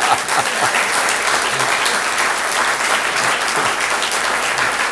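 Audience applauding steadily, a dense even clapping that holds without a break.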